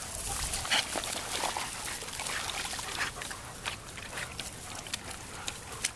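A pack of German Shepherd dogs milling about and scuffling on grass, a rustling, shuffling noise broken by many short sharp sounds.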